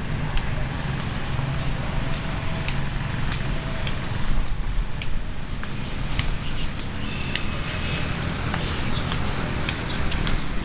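Steady low outdoor rumble with light, regular footsteps on a paved path, about one step every half second, as someone walks along.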